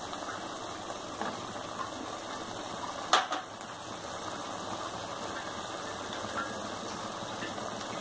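Diced coconut pieces tipped into a pan of sautéing chicken, landing with one short clatter a little after three seconds, over a steady mechanical hum.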